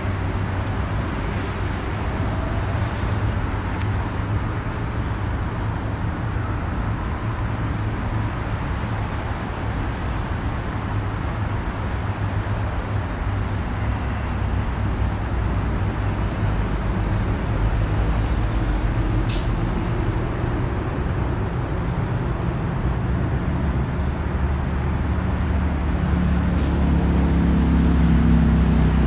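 Steady low rumble of motor traffic, with a heavy vehicle's engine getting louder and rising in pitch near the end.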